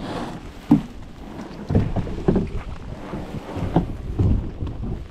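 A canoe being paddled: irregular thuds and splashy knocks of paddle strokes against the water and hull, with wind buffeting the microphone.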